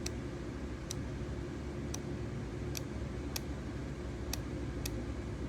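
A steady low hum with a light, sharp click roughly once a second, unevenly spaced.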